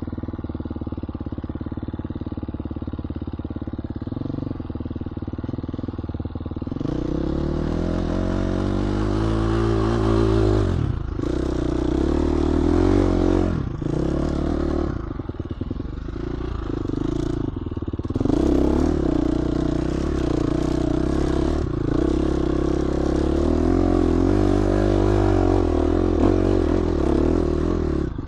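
GasGas 350 four-stroke dirt bike engine running low and steady at first, then from about seven seconds in revving up and down repeatedly under load, with the throttle briefly shut off several times.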